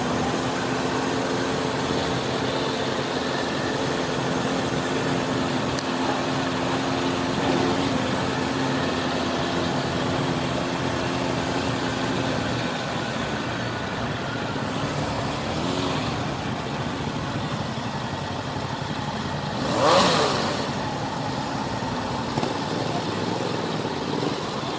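Kawasaki motorcycle engine running steadily under wind and road noise, heard from a camera mounted on the bike; the engine note fades into the noise about halfway through. About twenty seconds in, there is a brief, louder swell.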